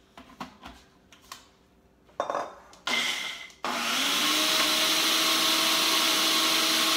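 Ninja blender chopping pesto ingredients: a few clicks and knocks as the jar is set on the base, two short pulses, then the motor runs steadily for about three seconds.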